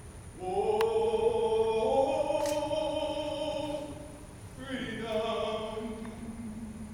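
A group of voices singing a hymn in long held notes, several pitches together; one phrase of about four seconds, then a second phrase starting a little past halfway.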